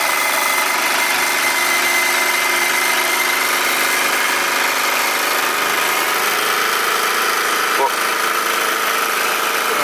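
Wilesco D32 toy steam engine running steadily on live steam piped from a separate MSM 4-inch boiler, its flywheels spinning. A single brief click about eight seconds in.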